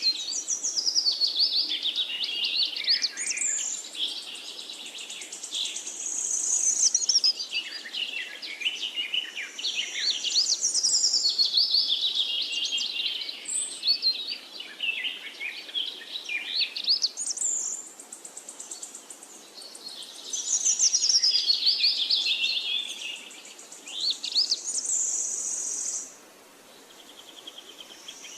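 Several songbirds singing together, a busy chorus of fast chirps, trills and sweeping whistled phrases, with a pause in the song near the end.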